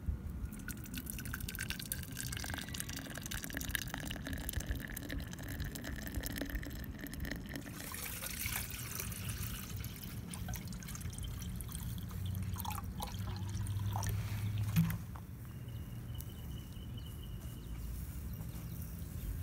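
Liquid being poured and trickling into a vessel for karak tea, with a faint pitch rising slowly over the first several seconds. A low hum comes in for a few seconds, ending in a short knock about fifteen seconds in.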